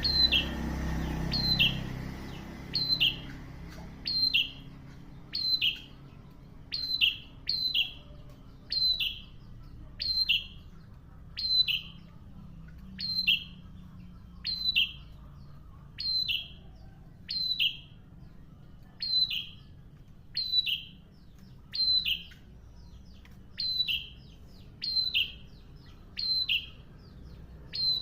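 A prinia (prenjak) calling over and over, a short, sharp falling chirp repeated steadily about every second and a half. A low rumble sits under the first two seconds.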